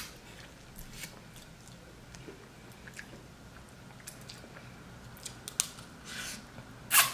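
Close-up eating sounds of seafood being chewed: scattered small wet mouth clicks and chewing, with a louder smacking burst near the end.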